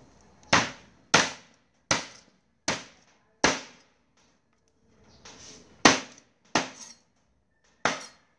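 Knife chopping a raw duck on a thick wooden chopping block, cutting off a wing tip: about eight sharp chops with a short ringing after each, five in the first half and three more after a pause about four seconds in.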